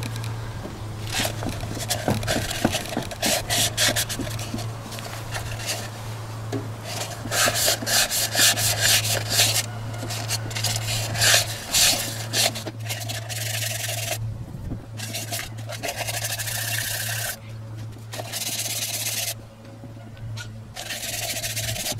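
Wet-and-dry abrasive paper scrubbing the rust off a cylinder bore of a Toyota 1KZ-TE diesel engine block by hand: rapid back-and-forth rubbing strokes on the metal bore wall, with a couple of short pauses.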